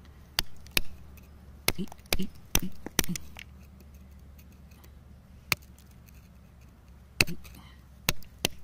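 Flat metal chisel tip tapping and picking at wet, crumbly sandy rock: sharp, irregular clicks and short scrapes, several in the first three seconds, one in the middle, and a few more near the end.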